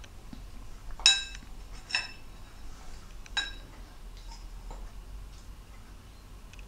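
Spoon clinking against a dish as a small child eats: three sharp ringing clinks, about one, two and three and a half seconds in, with fainter taps between.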